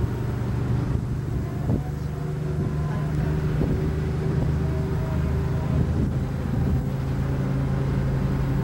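City bus engine running with a steady low drone, heard from inside the passenger cabin.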